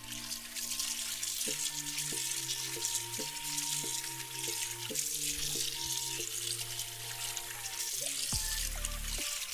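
Tap water running into a stainless steel sink while shrimp are rinsed by hand, over background music.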